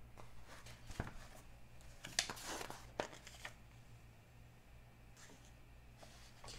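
Pages of a glossy paperback magazine being turned and handled: a soft knock about a second in, a crisp paper rustle a little after two seconds, then quieter rustles as the page is smoothed down. A low steady hum runs underneath.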